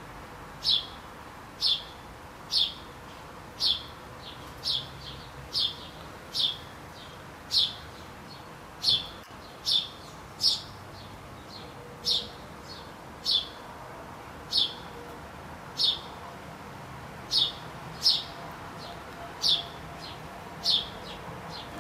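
A bird chirping repeatedly, short sharp high-pitched chirps at roughly one per second, over a faint steady background hiss.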